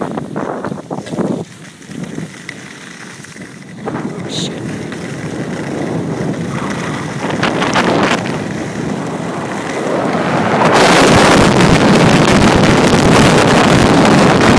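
Wind rushing over the microphone of a camera carried by a moving skier, mixed with skis scraping over snow. The rush builds and then jumps suddenly to a loud, steady roar about eleven seconds in.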